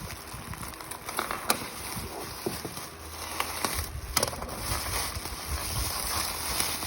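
Plastic parcel packaging being handled and unwrapped: crinkling and rustling, with sharp clicks about a second and a half in and again about four seconds in.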